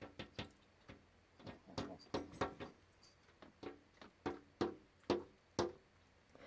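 A small bird tapping its beak against window glass: irregular sharp taps, some in quick runs of two or three, several leaving a brief ringing in the pane.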